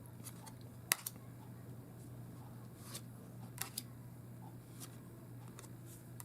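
Tarot cards being handled and turned over one by one: scattered light clicks and snaps of card stock, the sharpest about a second in, over a low steady hum.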